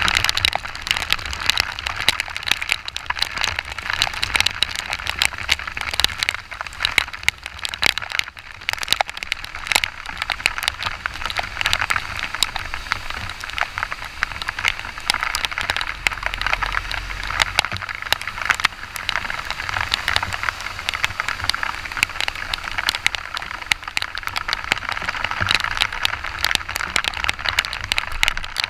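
Heavy rain beating close to the microphone while riding a motorcycle: a dense, unbroken crackle of drop hits over a steady hiss.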